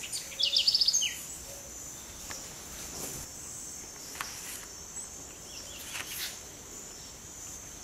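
Steady high-pitched drone of insects, with a short rapid chirping trill about half a second in and a few faint chirps later.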